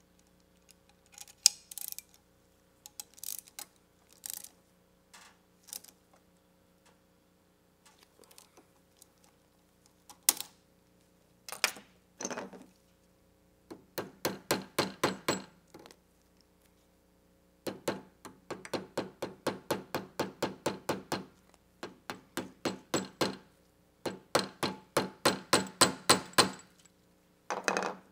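Ratchet wrench clicking as it drives a band-clamp tightening tool, cinching a metal clamp on a CV axle boot. Three long runs of quick, even clicks in the second half, with scattered clicks and knocks of tools being handled before them.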